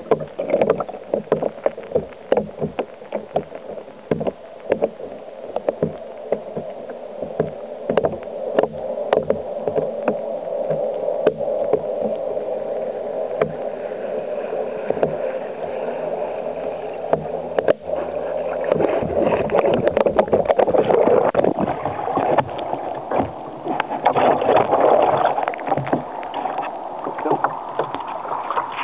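Electric RC catamaran running on water, heard from a camera on its deck: a steady motor whine with many sharp knocks and splashes as the hull hits the water.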